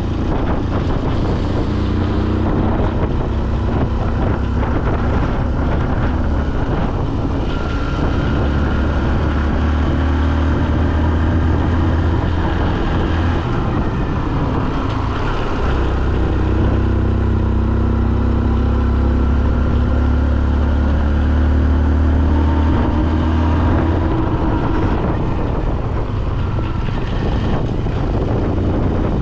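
A vehicle engine running steadily while on the move, its hum swelling and easing a few times, with wind noise on the microphone.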